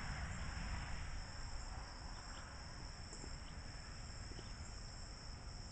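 Steady, high-pitched insect chorus, a continuous drone of crickets, over a low outdoor rumble.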